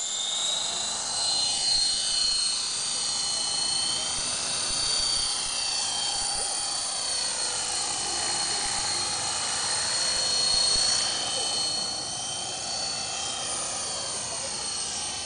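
Align T-Rex 450 electric RC helicopter in flight: a steady high whine from its brushless motor and gears over the whoosh of the rotor blades. The rotor is set to a flat 8-degree pitch, so the head speed stays low.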